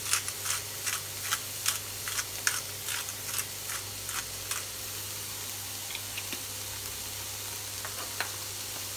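Salt and pepper grinder clicking over a frying pan, about two clicks a second, stopping about halfway through. Under it, diced onion and bell pepper sizzle steadily in the hot pan.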